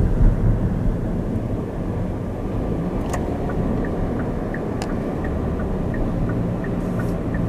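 Car driving, heard from inside the cabin: a steady low rumble of engine and road noise. From about three seconds in comes a light, regular ticking, about three to four ticks a second, with two sharper clicks among it.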